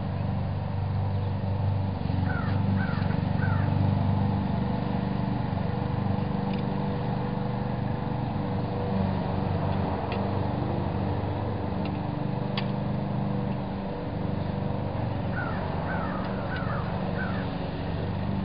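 A steady low engine hum, with a bird calling in two short runs of four or five calls. A few faint clicks come from an adjustable wrench tightening the hex bolts on a steel mailbox-post base.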